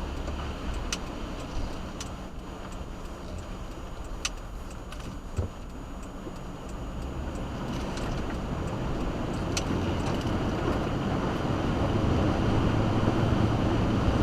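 Car driving, heard from inside the cabin: a steady low rumble of engine and road noise that grows louder over the second half, with a few sharp ticks.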